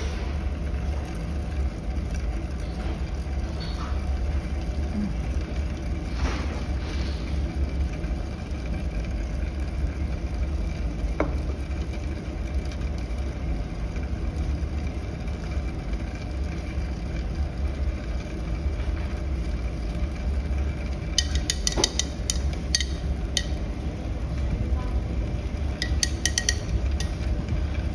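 Steady low hum of laboratory equipment, with a run of light clinks about three quarters of the way through and again near the end as glassware at the magnetic stirrer is handled.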